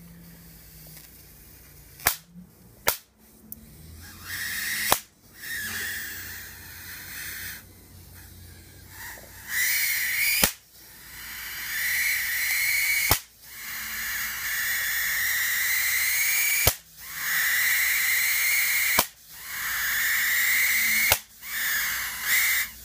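High-voltage arcs drawn from a CRT monitor's flyback transformer: a harsh, steady buzzing hiss in stretches of two to three seconds, broken by sharp snaps, about eight in all.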